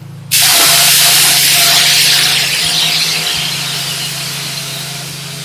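Clear coat being sprayed onto car panels: a loud, even hiss of spray that starts suddenly about a third of a second in and slowly eases off. A steady low hum runs underneath.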